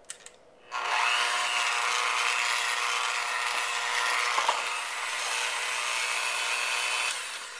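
Electric mixer running steadily as it beats butter, sugar, flour and oatmeal into a crumbly dough. It starts about a second in and stops near the end.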